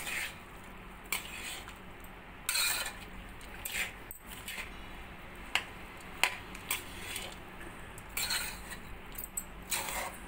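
A metal spatula scraping and clinking against an aluminium kadai as cooked rice is stirred and turned over, in irregular scrapes with a few sharper knocks.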